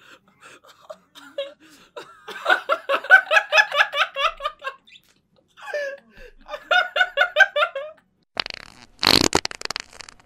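Two men laughing hard in quick ha-ha-ha pulses, in two bouts, then a sudden loud burst of noise about a second and a half long near the end.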